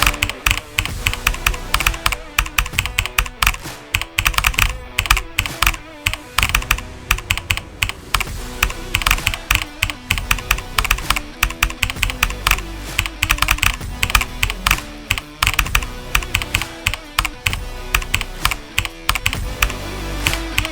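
Rapid typing on a mechanical keyboard: a dense, irregular stream of sharp key clicks with brief pauses, over background music.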